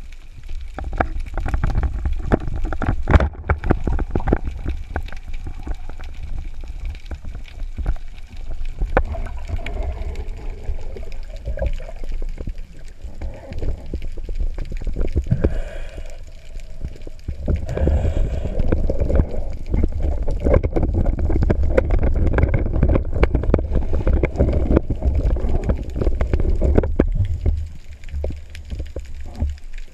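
Water rushing and gurgling around an underwater camera housing as a spearfisher swims, with many small knocks and clicks and one sharp click about three seconds in.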